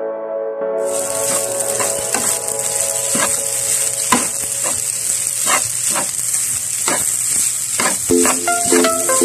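Java rice sizzling as it fries in a hot pan, stirred and scraped with a spatula, with a scraping stroke about every half second. Background music at the very start and again near the end.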